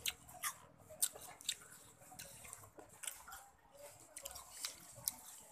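Short, irregular wet clicks and smacks of a person eating rujak, pieces of fruit dipped in chili sauce, by hand: fingers working the sauced fruit and mouth biting and chewing it.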